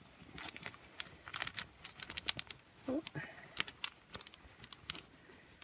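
Small wooden ogham pieces clicking and clattering together as they are handled: a run of irregular light clicks, with a brief vocal sound about three seconds in.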